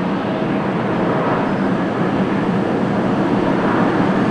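Jet engines of a Boeing 787-9 Dreamliner at takeoff power during the takeoff roll and rotation. The engine noise is steady and grows slowly louder.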